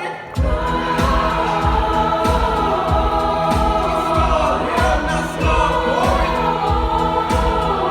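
Show choir singing held chords without words over music with a steady low beat.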